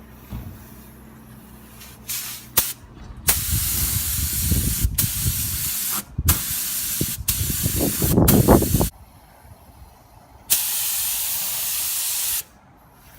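WS400 air spray gun spraying a coat of clear lacquer in trigger-pulled passes: a steady hiss starts about three seconds in, breaks briefly around six seconds, stops near nine seconds, then returns for one more pass of about two seconds.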